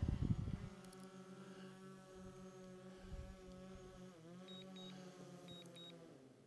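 DJI Mavic 3 Pro drone's propellers humming steadily as it descends to land, the pitch dipping briefly about four seconds in. A low rumble comes in the first second, and short high beeps sound in pairs near the end.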